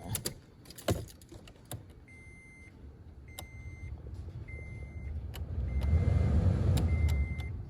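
A Toyota's heater/AC blower fan rushes air, swelling through its speeds to its loudest at high speed and dropping off near the end, now working on every speed with a new blower motor resistor fitted. Switch clicks come in the first couple of seconds, and five evenly spaced beeps sound about a second apart over the fan.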